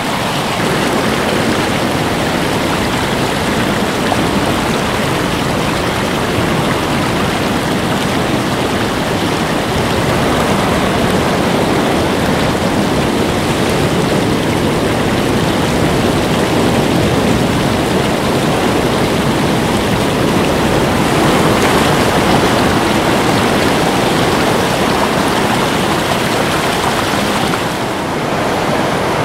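Ocean surf: a steady wash of breaking waves that swells and eases, with a brief dip in level near the end.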